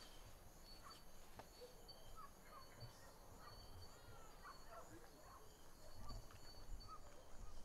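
Faint night-time ambience: a high, pulsing insect trill with scattered faint short chirps, over a low rumble that grows a little after about six seconds.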